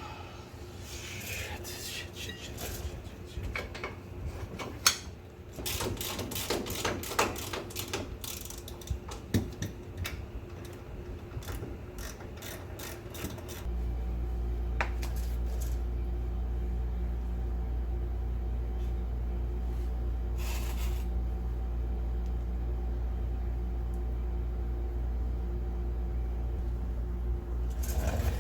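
Hand tools and metal suspension parts clicking and clanking in irregular taps and knocks as the ball-joint work goes on, with a steady low hum starting abruptly about halfway through.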